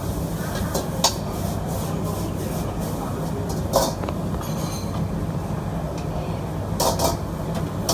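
Steady roar of a gas wok burner with a metal spatula striking the wok three times as mee goreng is stir-fried.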